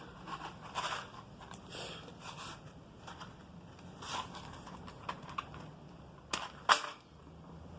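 Handling noise and scattered sharp clicks from a handheld butane torch being readied and lit, with two loud clicks near the end.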